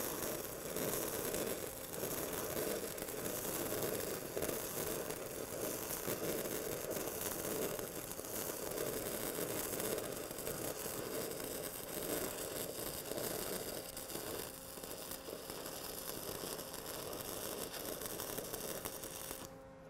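1/8-inch 6010 stick-welding arc running at 75 to 80 amps on a pipe root, a steady harsh crackle. The rod is held too far from the joint and whipped out (long arcing and flaring), throwing spatter and eating away the keyhole. The arc stops near the end.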